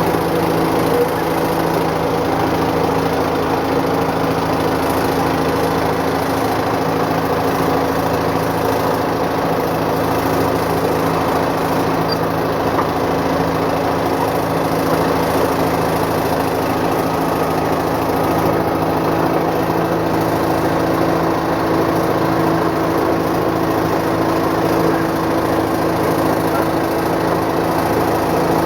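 Caterpillar 955 track loader's diesel engine running at a steady speed, its pitch and loudness unchanging.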